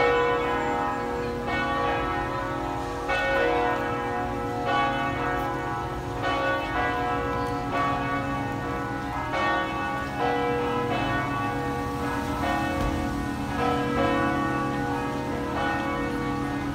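Peal of the Notre-Dame de Québec basilica's Cornille-Havard church bells, several bells ringing together. Strokes come about once a second or a little slower, each leaving a long overlapping ring.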